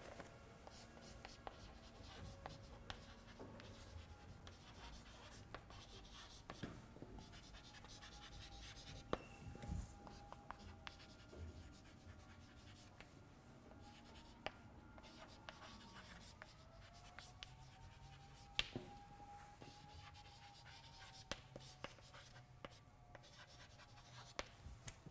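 Chalk writing on a blackboard: faint scratches and taps of the chalk against the board.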